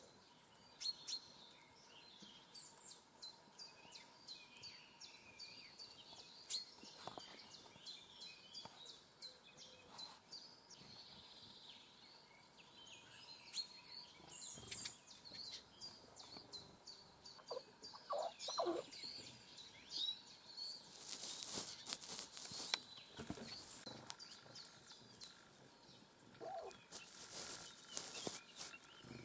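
Small songbirds chirping and calling, with a long run of quick, evenly spaced high ticks. Several brief rustling bursts come near the end.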